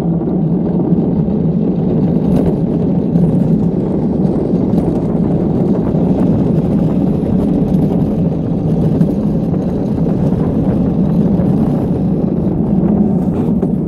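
Gravity luge cart rolling fast down a paved track: a steady, loud rumble of its wheels on the asphalt.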